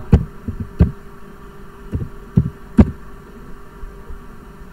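Computer keyboard keystrokes: about five separate dull thumps, bunched in the first three seconds, over a steady faint hum.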